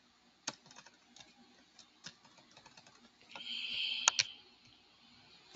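Computer keyboard keys clicking irregularly as code is edited, with a short hiss a little over three seconds in.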